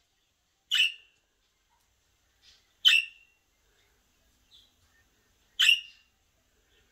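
Budgerigar calling: three loud, sharp calls about two to three seconds apart, with a couple of faint short chirps between them.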